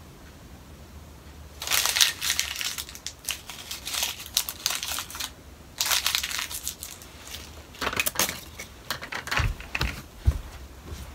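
Crinkling and crumpling of a small packet worked in the hands, in two long spells with scattered crackles between. A few low thuds near the end as a person gets up off the bed.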